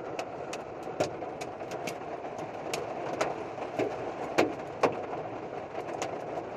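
Hail mixed with rain pelting a truck, heard from inside the cab: a steady rush of rain under irregular sharp hailstone hits, with a few much harder strikes about a second in and twice around four to five seconds in.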